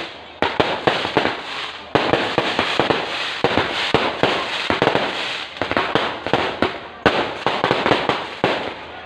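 Fireworks going off: a dense, irregular run of sharp pops and crackles, several a second.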